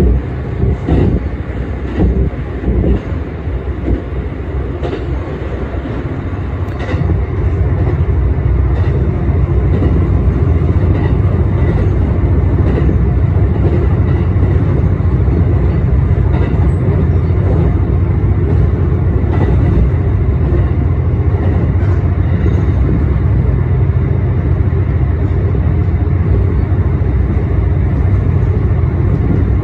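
ET122 diesel railcar running along the line, heard from inside the cab: a few wheel knocks over rail joints in the first seconds, then a louder, steady low rumble from about seven seconds in.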